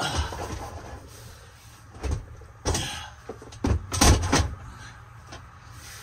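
A portable 12-volt fridge being pushed on its metal slide tray into a tight cabinet opening: scraping and sliding, then a run of knocks and thumps, the loudest about four seconds in, as it bumps into place.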